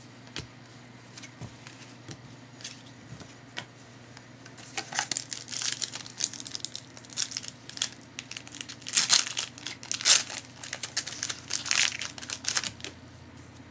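Foil trading-card pack wrapper being torn open and crinkled by hand: a few faint clicks, then from about four and a half seconds in a run of sharp crinkling and tearing, loudest past the middle, dying away near the end.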